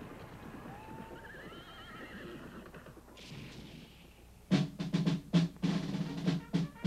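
A horse whinnying, a short quavering call over a faint haze of background noise; about four and a half seconds in, loud, sharp drum beats begin.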